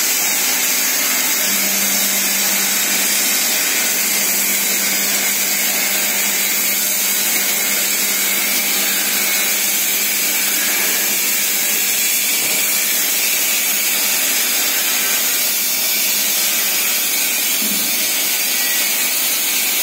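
Industrial mixer's head-lift drive running as the mixing head is lowered into the bowl: a steady hum that starts a second or two in and stops near the end, over a constant hiss.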